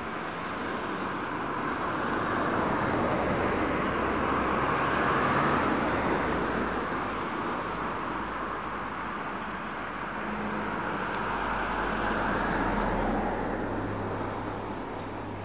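Freight train of empty limestone wagons rolling past, a steady rumbling rush that swells and eases twice.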